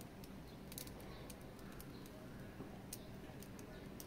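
Irregular light clicks and taps of an action figure's small parts being handled, over a low steady background hum.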